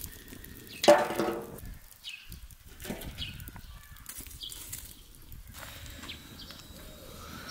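A single metallic clank about a second in that rings briefly, over the faint crackle of a wood fire. A few short high chirps follow.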